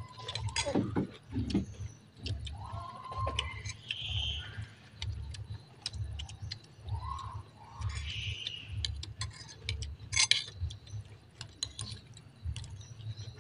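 Forks and spoons clinking and scraping against china plates and bowls while people eat: a string of small, irregular clicks, with one louder clink about ten seconds in.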